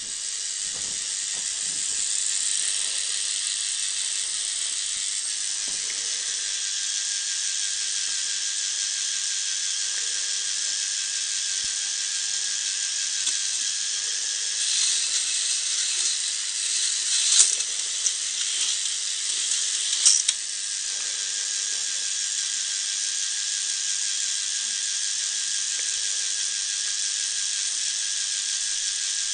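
K'nex roller coaster's motorised plastic chain lift running: a steady mechanical whir and rattle with a high, even hiss. About halfway through it gets louder and busier for several seconds, with two sharp clacks, then settles back to the steady run.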